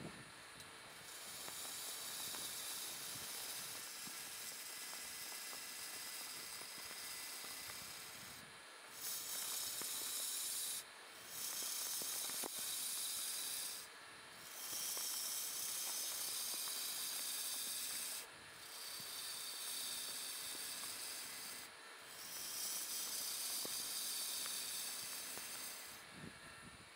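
A gouge cutting into the face of a large laminated wooden platter spinning on a wood lathe: a steady high hiss of shavings coming off, in about six passes of a few seconds each with short breaks between, over the faint steady hum of the running lathe.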